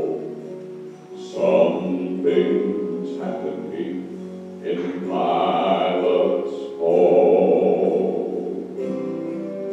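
A man singing a gospel song into a microphone over instrumental accompaniment, in sung phrases of a few seconds each with long held notes.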